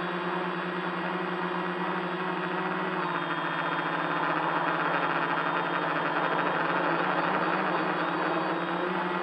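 Tricopter's three electric motors and propellers whirring in flight, heard from a camera on board: a steady buzzing hum that grows louder in the middle as the throttle changes, then eases slightly near the end.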